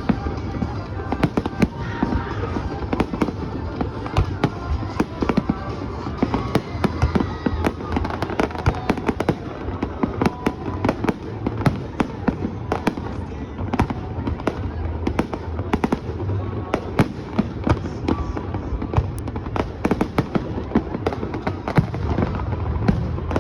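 Fireworks bursting in rapid succession: a dense, continuous run of sharp bangs and crackles, several a second, over a low rumble.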